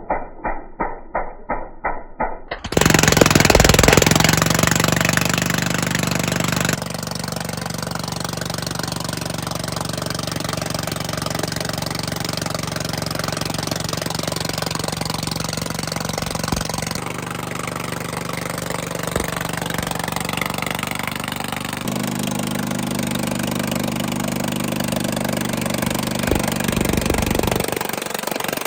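Vermeer SC30TX stump grinder running hard, its cutting wheel chewing into an oak stump: a loud, steady engine drone under a dense grinding noise. It opens with a short rhythmic pulsing of about four beats a second, and its tone shifts abruptly a few times.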